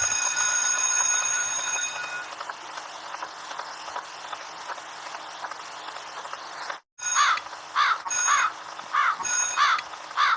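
Sound-effect clips: a held tone with steady overtones for about two seconds over a noisy background. After a brief cut, short sharp calls or beeps repeat about twice a second.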